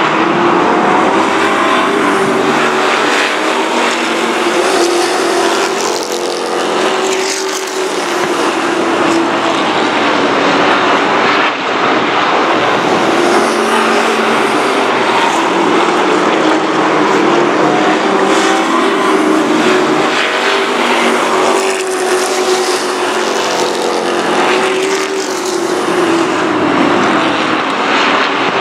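A pack of race trucks running at speed on a short oval, several engines heard at once. The engine pitch rises and falls over and over as the pack circles the track.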